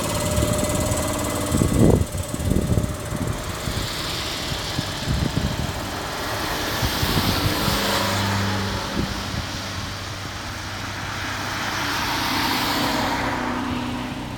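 Towada Kanko Electric Railway train pulling into the station and coming to a stop: a few heavy clunks about two seconds in, then a long hiss, with a low steady hum joining about halfway through.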